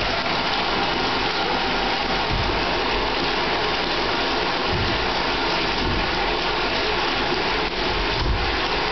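Water running steadily from the tap into a bathtub, filling it.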